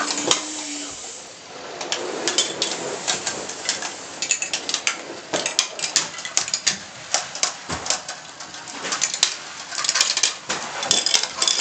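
Glass marbles clattering through a plastic toy marble run: an irregular stream of small sharp clicks and rattles as they roll along the plastic chutes and drop through the track pieces.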